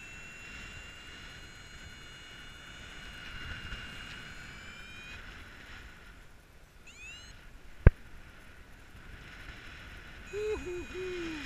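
Paragliding variometer sounding a steady electronic tone that shifts a little in pitch, stopping about five seconds in, over wind rush on the microphone. A few quick rising chirps come near seven seconds in, then a single sharp click, the loudest sound. The tone returns near the end with a short low vocal sound.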